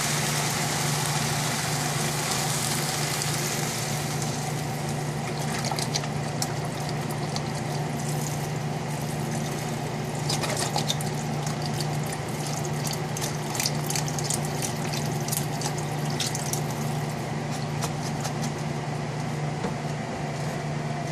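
Chicken broth poured from a carton into a saucepan of chopped vegetables: a long, steady pour with scattered splashes, over a steady low hum.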